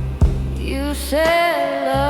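Slow blues ballad with bass and drums; a singer comes in about two-thirds of a second in and holds a long wavering note with vibrato.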